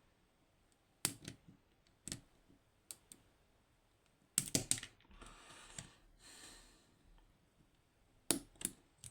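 Sharp metallic clicks and taps of hand tools on a lock, with a quick cluster of clicks about halfway and a stretch of scraping just after it, as the lock's retaining clips are pried while taking it apart.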